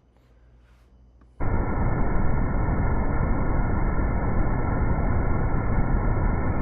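Steady roar of a waterfall, cutting in abruptly about a second and a half in, heavy and low with a few faint steady tones above it.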